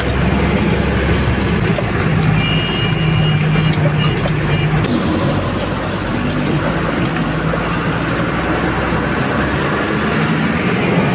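Diesel engine of an empty goods truck running under load as the truck climbs up onto the main road, a steady hum whose note changes about five seconds in.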